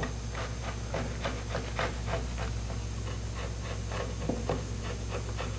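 Short scraping strokes, a few a second, as softened old glue is cleaned out of a groove in a wooden sofa frame, over a steady low hum.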